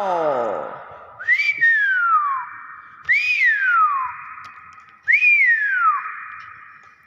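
Hill myna whistling three times about two seconds apart, each whistle a quick rise followed by a long falling glide.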